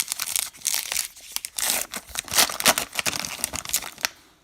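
Baseball card pack wrapper crinkling as it is torn open and handled, in irregular bursts of rustling that die away near the end.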